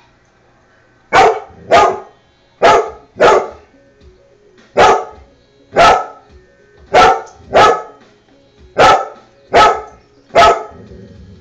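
A dog barking at an exercise bike: eleven sharp, loud barks, mostly in pairs, starting about a second in.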